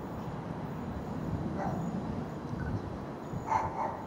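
Two short animal calls, one about a second and a half in and another near the end, over a low steady rumble.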